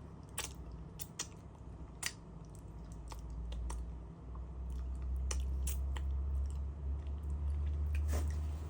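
Close-miked chewing of soft durian flesh, with scattered sharp wet mouth clicks and smacks. A steady low hum underneath grows louder about three seconds in.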